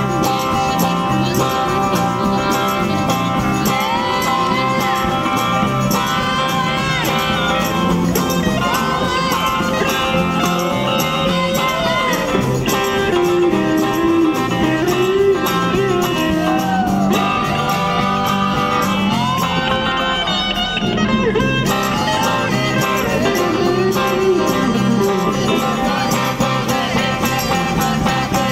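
A group of amateur singers performing a rock-and-roll song together, accompanied by strummed electric and acoustic guitars.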